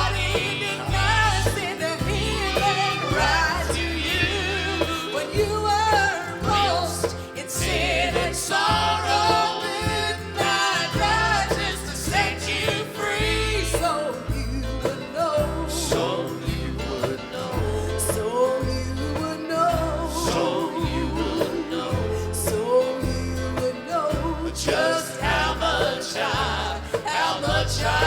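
A gospel song: singing over instrumental backing with a steady bass line.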